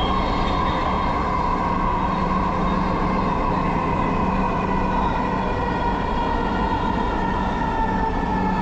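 Dhaka Metro Rail electric train heard from inside the car: a steady running rumble with a motor whine that slowly falls in pitch as the train slows for the next station.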